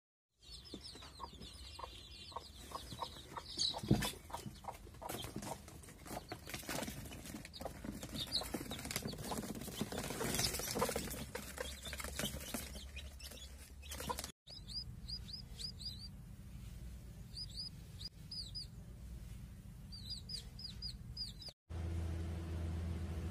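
A hen flapping her wings and scrambling in a cardboard box among her chicks, with rustling and high peeping. Then come short clusters of chick peeps every couple of seconds, and near the end a low steady hum.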